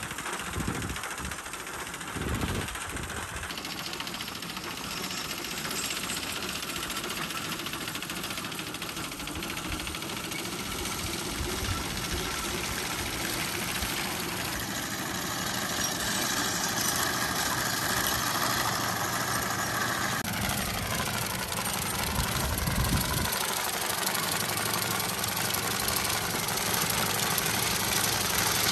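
Horse-drawn, ground-driven sickle-bar hay mowers at work: the reciprocating knife and gearing make a steady mechanical clatter as the cutter bar cuts standing hay.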